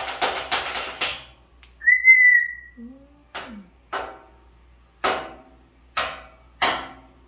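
African grey parrot banging its beak on a stainless steel tray: a quick run of ringing metallic knocks in the first second, then five single knocks about a second apart. About two seconds in a parrot gives one short whistle, the loudest sound.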